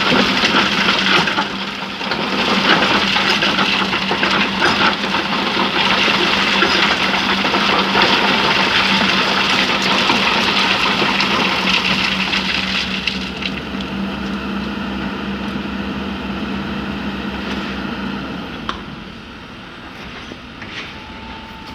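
Hydraulic excavator at work in sand, its engine running with a steady hum under a dense, crackling scrape and pour of sand and stones. The noise is loudest for the first dozen seconds and then eases, and the engine hum stops about eighteen seconds in.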